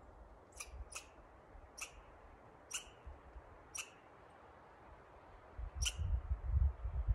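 Six short, high-pitched chirps at uneven intervals of about a second, from a small wild creature calling in the forest. Near the end a low rumble on the microphone comes in.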